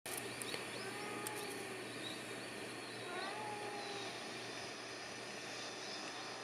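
Cats meowing outdoors: a drawn-out meow near the start and another about three seconds in. Faint high chirps and a steady low hum run underneath.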